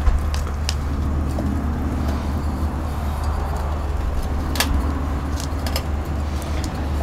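Hands working potting soil around an echeveria in a terracotta pot: a few small clicks and soft rustles over a steady low rumble of outdoor background noise.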